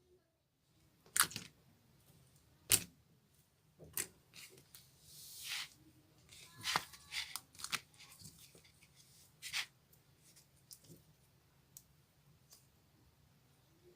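Thick clear slime being handled by hand, giving scattered sharp pops and clicks as air pockets burst. A short crackling swell comes about five seconds in, and the clicks grow sparse near the end.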